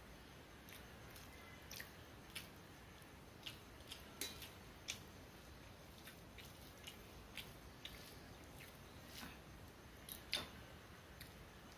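Quiet eating by hand: soft, irregular clicks and smacks of chewing and of fingers working rice and egg-potato curry, over a faint steady hiss. The loudest click comes about ten seconds in.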